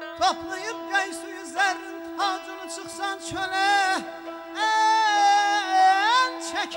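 Male Azerbaijani mugham singer (khanende) singing an ornamented melismatic line, with a rapid wavering trill about three and a half seconds in and a long held note near the end, over a steady held instrumental tone.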